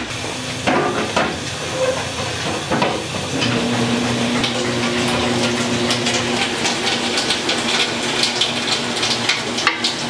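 Steam hissing steadily in a sundae kitchen where the sausages are cooked in a cauldron, with a few knocks and clatters in the first few seconds. A steady low hum joins about three and a half seconds in.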